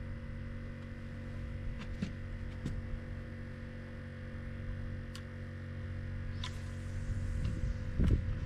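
A steady low hum with a few faint clicks, and low rumbling thumps near the end.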